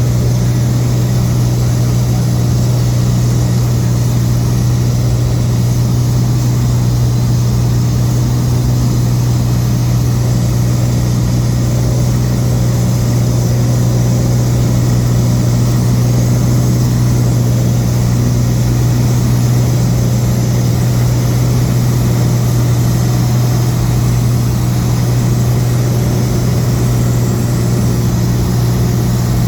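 An engine running steadily at one speed, a deep even drone that does not change.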